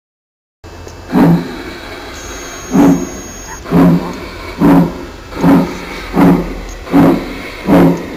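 Digital steam-locomotive sound from a Massoth sound decoder in an LGB Mallet model locomotive, played through its small loudspeaker. A steady hiss starts under a second in, then loud steam chuffs follow, slow at first and quickening to a little more than one a second as the locomotive gets under way.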